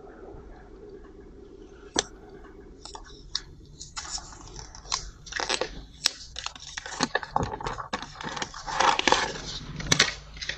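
A cardboard smartphone box's lid slides off with a tap about two seconds in. Then paper wrapping crinkles and tears as its tape tab is peeled away from the phone, busiest near the end.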